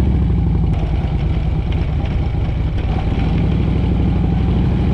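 Harley-Davidson V-twin motorcycle engine pulling away from a standstill; its note shifts as the bike gets under way, then settles into a steady run.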